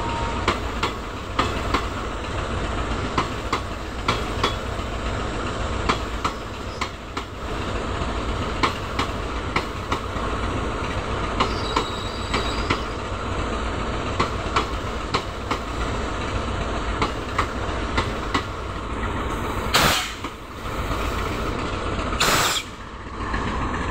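Passenger train coaches rolling past, their wheels clicking unevenly over the rail joints above a steady rumble, with a faint, brief wheel squeal about halfway. Two short, loud rushes of noise come near the end.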